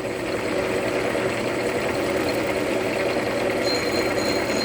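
Milling machine running steadily with the cutter taking a cut in metal, a faint high whine joining in near the end.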